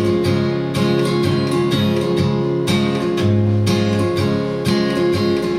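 Solo acoustic guitar strummed in a steady rhythm, about two strokes a second, with the chords ringing between strokes.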